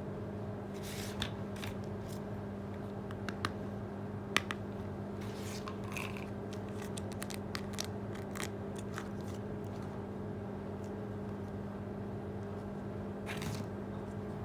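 Small objects being handled: scattered light clicks and taps, with brief rustles about a second in and near the end, over a steady low hum.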